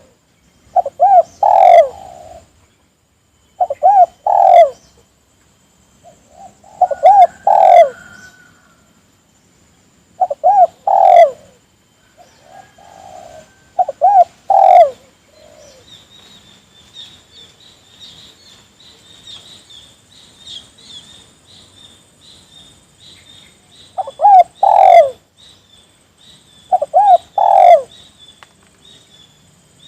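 Spotted dove (tekukur) cooing: short phrases of two or three coos repeated about every three seconds. The cooing pauses for several seconds past the middle, while a faint high chirping carries on underneath.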